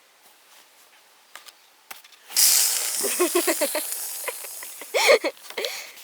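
A child's voice makes a loud, drawn-out hiss with quick warbling squeaks mixed into it, then a short, high squeal that rises and falls.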